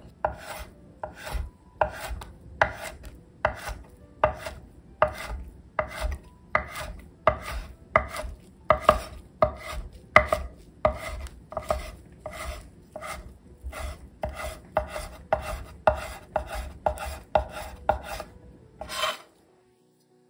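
Chef's knife slicing a rolled thin egg omelette into fine strips on an end-grain wooden cutting board: steady, even cuts of about two a second, each ending in a knock of the blade on the wood. The cutting stops suddenly near the end.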